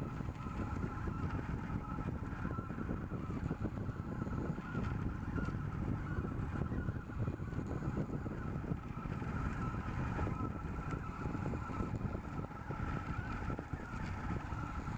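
RepRap 3DR delta 3D printer running a print: its stepper motors give a steady, slightly wavering whine over a continuous mechanical whir.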